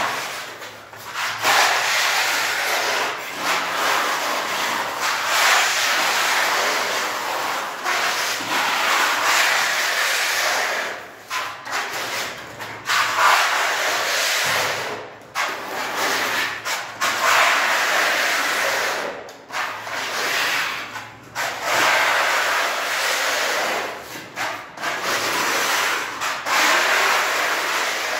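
Putty blade spreading wall putty across a cement-plastered wall, a scraping sound in long sweeping strokes of a second or two, each broken off by a short pause as the blade is lifted for the next stroke.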